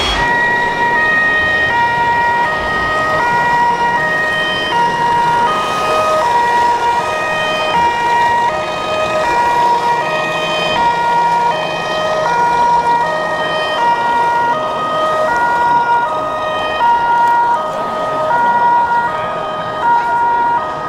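Two-tone emergency-vehicle siren of the German fire-brigade kind, a low and a high note in steady alternation about one pair a second, sounded for a model fire truck.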